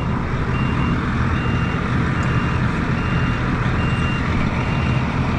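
Tractor engine running steadily under a high-pitched warning alarm that beeps about once a second. The alarm is a high-temperature warning that the farmer puts down to a failing sensor, since the oil tested fine.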